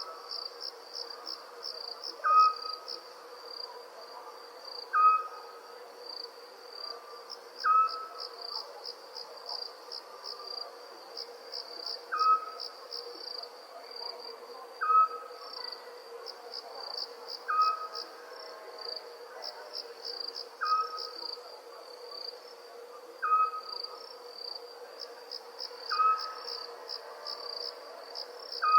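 Crickets chirping steadily in fast pulsed trills, with an owl giving a short single hoot about every two and a half seconds; the hoots are the loudest sounds. A faint steady low hum runs underneath.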